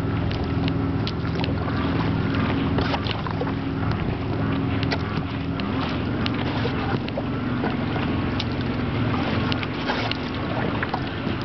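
Kayak paddle strokes: water splashing and dripping in many small irregular clicks, over a steady low hum.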